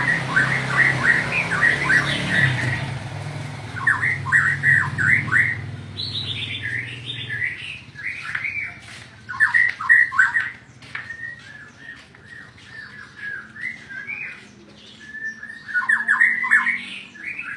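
White-rumped shama (murai batu) singing: phrases of quick, repeated and varied notes, some harsh, coming in bursts with short pauses between them.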